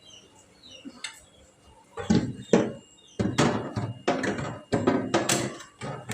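A string of knocks, thunks and scraping rustles from household items being handled and moved about while a refrigerator is being cleaned out. They begin about two seconds in and come in quick irregular bursts.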